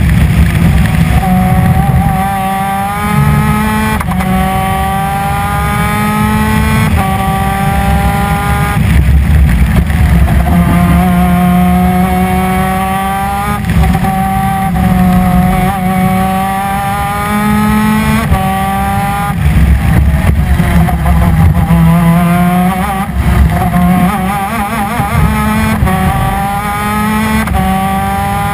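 Superkart's 250 cc two-stroke twin-cylinder PVP engine at racing speed, its pitch climbing again and again as it pulls through the gears, dropping back sharply at each shift or lift-off.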